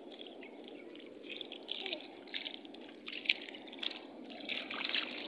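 Shallow seawater trickling and lapping over an exposed reef flat at low tide, with small irregular splashy ticks of feet on the wet ground.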